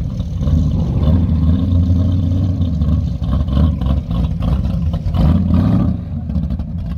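First-generation Chevrolet Camaro's engine rumbling loudly through its exhaust as the car pulls away under throttle across grass. The deep note swells and eases slightly as it passes close by.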